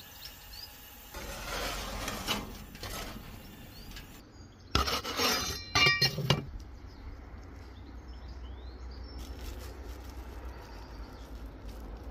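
A few clinks and clattering knocks, loudest in a short run about five to six seconds in, with a ringing tone.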